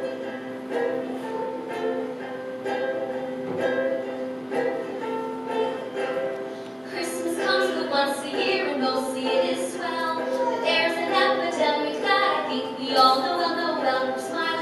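Ukulele playing a song's intro chords, then a woman starts singing to it about halfway through.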